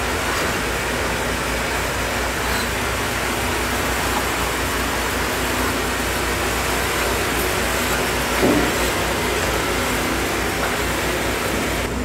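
Sawmill headrig working a huge cedar log: the log carriage runs on its rails while the saw cuts, giving a steady machinery noise with a low hum.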